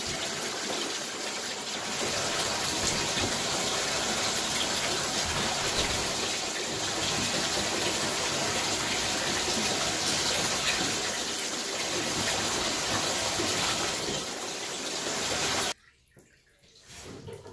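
Water running steadily in a shower during a dog bath, then shut off suddenly near the end.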